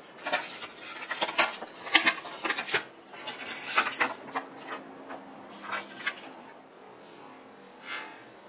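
Pen scribbling hard on paper: irregular scratchy strokes for about six seconds, then one short scrape near the end.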